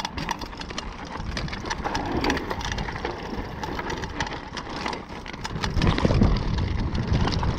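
Mountain bike riding fast down a dry dirt trail: knobby tyres crunching over loose dirt and stones, with a constant run of rattling clicks from the bike. A low rumble grows louder from about six seconds in.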